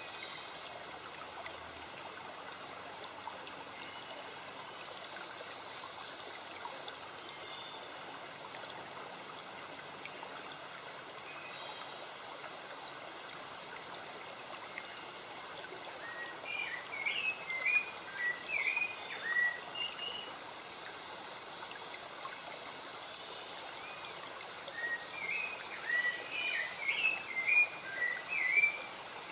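A stream running steadily, with a songbird singing two phrases of quick chirping notes, one around the middle and one near the end.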